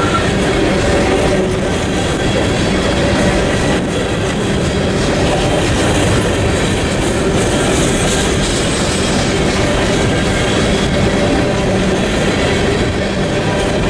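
Empty coal gondolas of a unit freight train rolling steadily past, their steel wheels rumbling and clattering over the rail joints.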